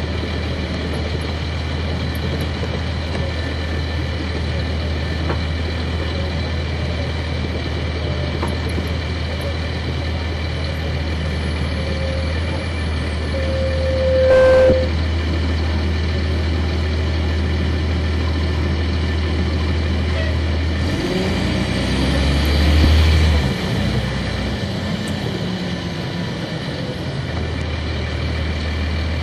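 Cummins ISC diesel engine of a 1999 Nova Bus RTS transit bus with a ZF Ecomat automatic, heard on board from the back, running steadily as the bus drives. A short high squeal comes about halfway through, and the engine note shifts and briefly grows louder about two-thirds of the way in.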